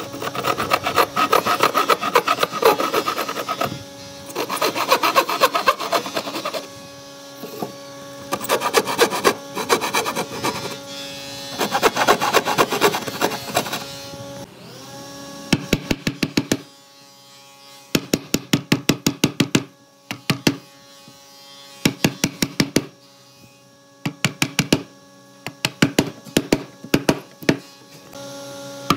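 Handsaw cutting through a pine board in quick rasping strokes, in several runs over the first half. After that come runs of sharp, rapid taps, over soft background music with steady tones.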